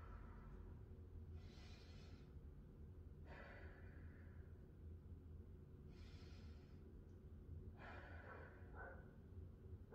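Faint slow, deep yoga breathing: two full breaths in and out, each breath sound lasting about a second, over a low steady hum.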